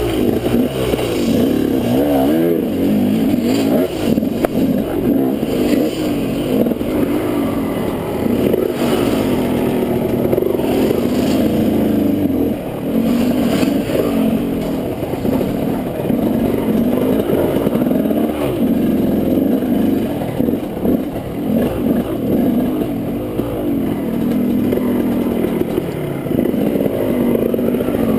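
KTM 200 two-stroke dirt bike engine revving up and down continually under load on a trail ride, with scattered knocks and rattles as the bike goes over rough ground.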